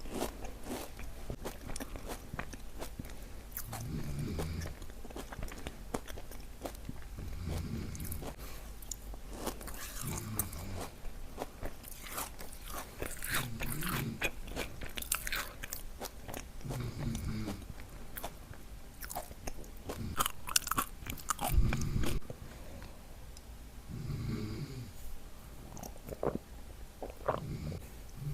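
Close-up crunching and chewing of a Dubai chewy cookie, its kataifi-and-pistachio filling crackling with each bite, busiest in the middle stretch. Under it a man snores in a slow, even rhythm, one snore about every three and a half seconds.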